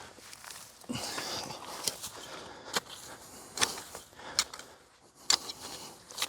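Rustling of local vegetation and turf being gathered and packed by hand to seal the gaps under a silt sump bag, with a dull knock about a second in and about five sharp crackles spaced just under a second apart.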